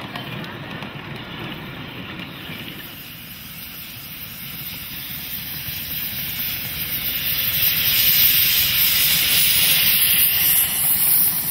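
Quarter-scale live steam locomotive venting a jet of steam from the top of its boiler: a loud, high hiss that builds up from about five seconds in, over the low rumble of the train rolling on its track.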